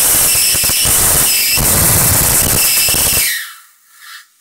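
High-voltage arc from a Fujitsu E155 CRT monitor's flyback transformer, a loud, constant tearing sound like a zip, cutting off about three seconds in.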